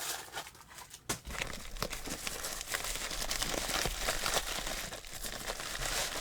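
Paper and plastic packaging being rummaged through and crinkled by hand as a mail-call package is searched. Irregular crackles and rustles come thicker after about a second in.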